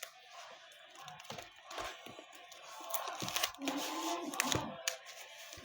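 Handling noise from a card binder: light rustling and scattered clicks of plastic sleeves and pages being handled.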